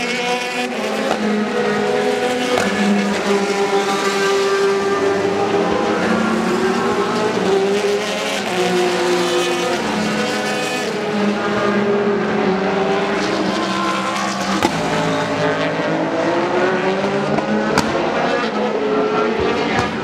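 Endurance race cars, prototypes and GT cars, running through a curve one after another. Their engines overlap without a break and keep rising and falling in pitch.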